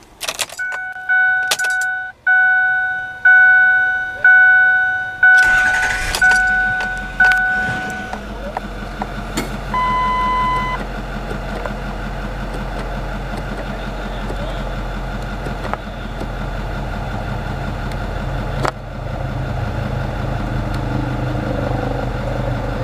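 Dashboard warning chime dinging about once a second while the 2008 Ford F-450 Super Duty's 6.4 L Power Stroke V8 diesel cranks and starts about five seconds in. The chime stops a few seconds later, a single beep sounds for about a second, and the diesel settles into a steady idle.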